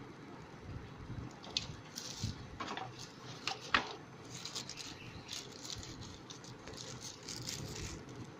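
Packaging being handled: scattered clicks and short rustles and crinkles as a box and its contents are opened and moved, over a low steady background rumble.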